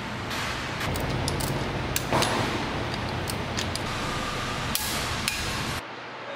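Metal hand tools clinking on engine parts: a dozen or so irregular sharp clicks and clinks over steady workshop noise, while a socket wrench works on the engine. Near the end the background drops suddenly.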